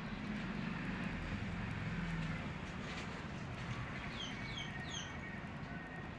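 Steady outdoor background rumble, with a bird giving three short, quick, falling chirps about four seconds in.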